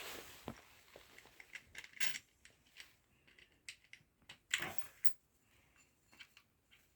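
Scattered light metallic clicks and taps, with louder knocks about two seconds in and again around four and a half seconds: a nut being worked off the axle of an electric-bike hub motor with hand tools.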